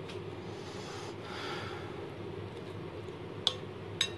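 Quiet kitchen handling over a ceramic plate while a bread slice is handled. A steady low room hum runs throughout, with a soft brief rustle about a second in and two sharp clicks about half a second apart near the end.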